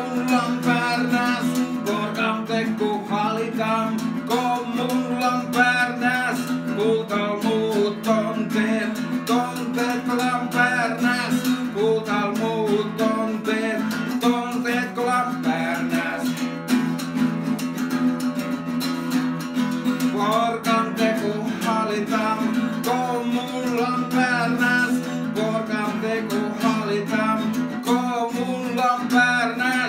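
A man singing a song in Sámi while strumming chords on an acoustic guitar.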